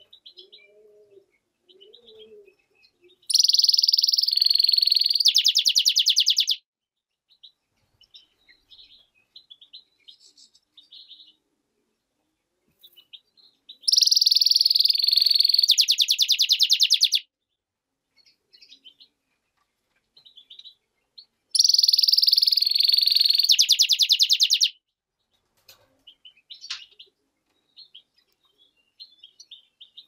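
Goldfinch × canary hybrid (mule) singing: three loud high phrases of about three seconds each, each a dense warble ending in a rapid trill, with soft scattered chirps between them.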